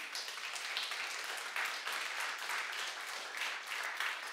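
A congregation applauding: many people clapping at once, steady throughout.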